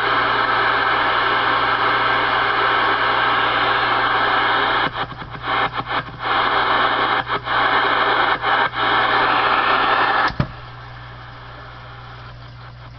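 Cobra 148 CB radio speaker hissing loud static with steady whistle tones over it. The static cuts in and out several times as the radio steps through channels by itself. About ten seconds in a click drops it to a much quieter hiss.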